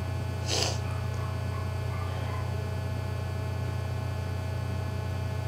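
Steady low electrical hum with a faint steady tone above it, and one brief rush of noise about half a second in.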